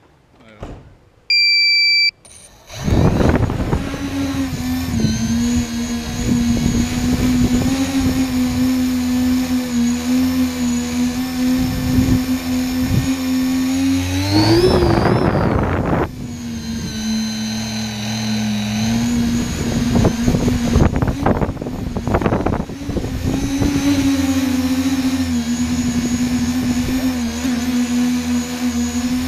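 A short series of electronic beeps, then a tricopter's electric motors and propellers spin up and run with a loud, steady buzzing hum. The pitch rises briefly about halfway through and settles again.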